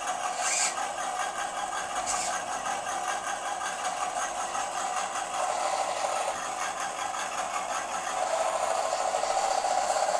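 Electric drive motor and WPL two-speed gearbox of a 1:10-scale RC Willys MB jeep whining steadily as the model drives slowly. The whine grows louder about eight seconds in.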